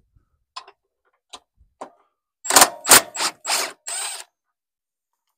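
A socket wrench with a 17 mm socket working on the mounting nuts of an old caravan stabiliser leg. There are a few light clicks, then a quick run of five loud, short bursts.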